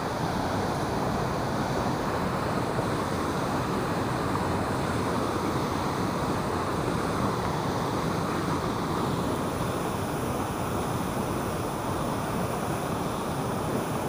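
Turbulent water rushing and churning out below a dam's sluice gate, a steady unbroken rush.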